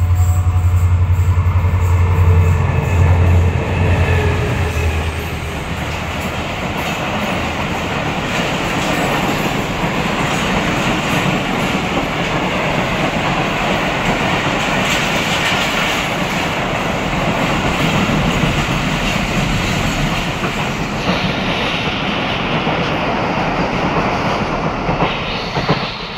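Pakistan Railways passenger express passing close by, led by an HGMU-30 diesel locomotive. The locomotive's engine hum is loud for the first few seconds. Then the coaches' wheels rattle steadily over the rails for about twenty seconds, dropping away as the last coach passes near the end.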